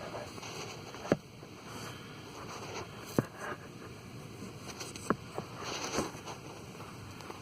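Handling noise: four sharp clicks and knocks over a steady hiss, the first, about a second in, the loudest.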